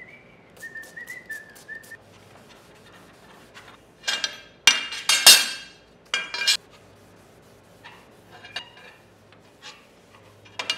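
A few wavering whistled notes for about two seconds, then steel angle and tube pieces clinking and ringing against each other and the steel fixture table as they are handled and wiped down, loudest around the middle.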